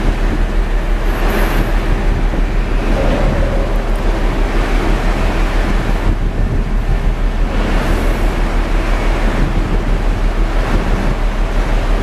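Heavy ocean surf breaking against a grounded ship's hull, mixed with loud wind noise, over a steady low rhythmic throb.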